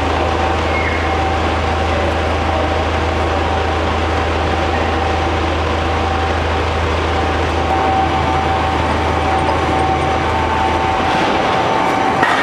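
Double-shaft cardboard shredder, driven by two 30 kW electric motors, running and tearing through a cardboard bale: a loud, steady mechanical din with a constant whine. The deep hum under it drops away after about eight seconds.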